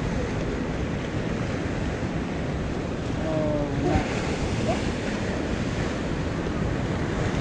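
Sea waves and surf washing below, with wind buffeting the microphone in a steady rushing noise.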